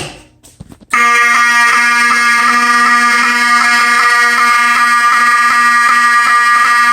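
Two Wheelock 7002T fire alarm horns sounding together, set off by a pull station: a loud, steady, buzzing horn tone that starts suddenly about a second in and runs on without a break.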